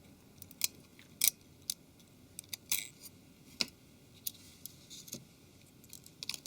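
Faint, irregular small clicks and scrapes of a tool unplugging the display and digitizer flex-cable connectors inside a Nokia 701 smartphone.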